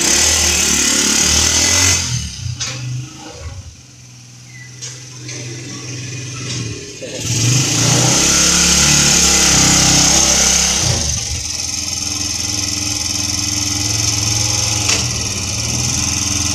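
Motorcycle engine of a homemade go-kart-style cart running. It is strong for the first couple of seconds, drops to a quieter idle, is revved up from about seven seconds in, then settles to a steady faster idle.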